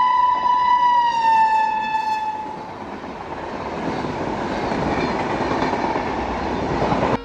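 Locomotive horn sounding one long tone as the train approaches at speed, its pitch dropping as the locomotive passes, followed by the steady rushing rattle of LHB coaches running past, which cuts off suddenly near the end.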